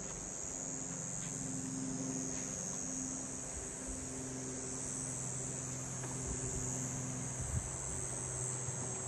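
Insects chirring in a continuous high-pitched drone, with a faint low steady hum underneath.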